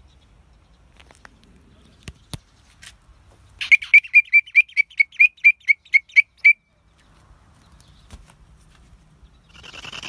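Katydid calling: a rapid, even series of about a dozen loud chirps, roughly four a second, lasting about three seconds, beginning a few seconds in. A few faint clicks come before it.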